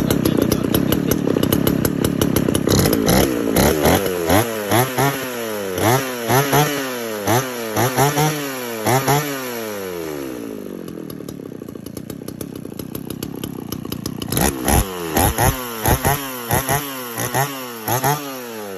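Shindaiwa E350AV 35cc air-cooled two-stroke chainsaw running, its throttle blipped over and over so the engine revs up and drops back about one to two times a second. It settles to a quieter idle about ten seconds in, then is blipped again in a second run of quick revs near the end.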